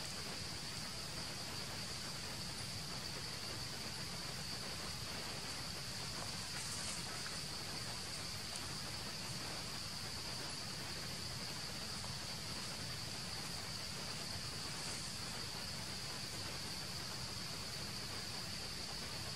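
Steady, high-pitched buzz of a forest insect chorus, unbroken throughout, over a soft background hiss.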